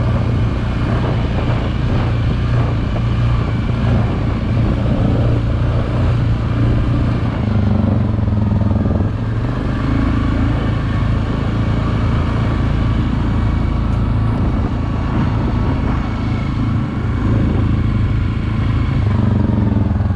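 ATV engine running as the quad rides along a dirt trail, its note rising and falling a little with the throttle.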